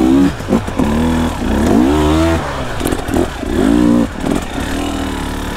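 Two-stroke dirt bike engine revving in repeated bursts of throttle, its pitch climbing and falling about five times.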